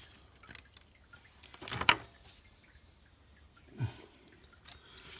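Water pump being worked loose and pulled off a GM 3800 V6 engine: scattered light clicks and knocks, with one loud sharp knock a little under two seconds in.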